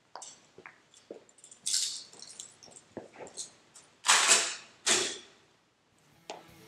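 Fur coat rustling as it is handled and pulled off: three loud swishes, the loudest about four seconds in, with small clicks and knocks between.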